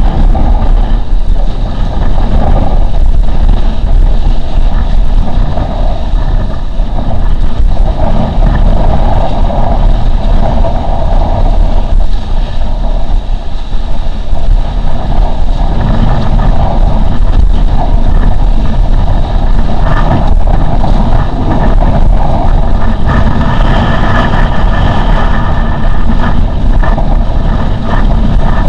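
Loud wind buffeting a camera microphone on a windsurf rig sailing fast, mixed with water rushing and slapping under the board over choppy water. A faint steady whine comes in near the end.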